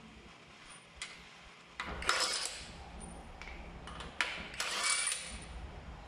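Cordless impact wrench running in two short bursts about two seconds apart, loosening a car wheel's lug nuts, with a few small metallic clicks between as the nuts are handled.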